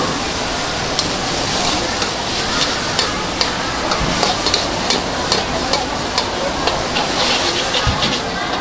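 Rice noodles sizzling in a hot wok while a metal spatula scrapes and clanks against the pan in quick, irregular strokes as they are stir-fried.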